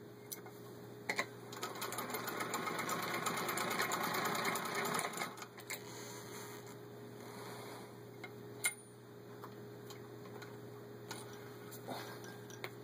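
A 1918 Singer 66-1 sewing machine, turned by a hand crank, stitching through six layers of denim: a run of rapid, even clicking starting about a second in and lasting about four seconds. Then it stops, and a few scattered clicks follow, one sharp click among them.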